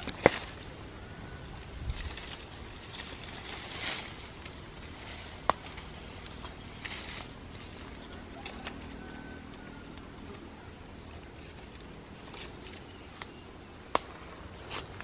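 Insects in the surrounding vegetation trilling steadily at a high pitch, with leaf rustling and a few sharp clicks as hands work through the foliage of a litchi tree, picking stink bugs into a bowl.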